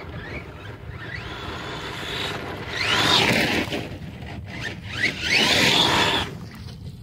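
Radio-controlled monster truck driven hard on loose gravel. Its motor whine rises and falls in pitch twice, about three and five and a half seconds in, over the hiss of its tyres spraying dirt and stones.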